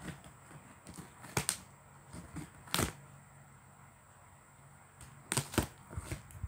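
Scissors snipping at the clear plastic wrap around a cardboard box: a few sharp snips a second or more apart, with two close together near the end.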